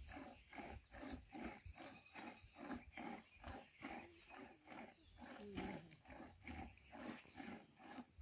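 Faint, steady rhythm of milk squirting into a plastic jug as a cow is milked by hand, about three squirts a second. A couple of short low animal sounds come about halfway through.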